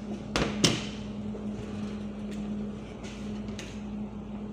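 Two sharp metallic clanks in the first second as a stainless-steel lunch container is set onto the wire rack of a food steamer cabinet, over a steady low hum.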